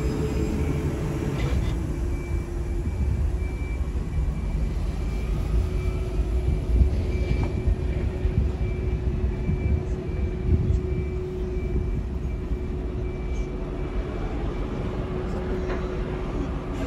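Luas tram (Alstom Citadis) moving slowly along the platform: a low rumble of wheels on rail with a steady electric hum.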